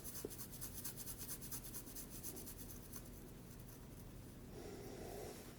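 A man in his forties breathing noisily in his sleep: a fast, scratchy rattle of about ten ticks a second for roughly the first three seconds, then a softer breath near the end.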